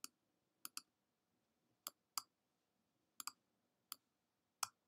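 Faint, sharp computer clicks, about nine, some in quick pairs, as text is selected on screen; otherwise near silence.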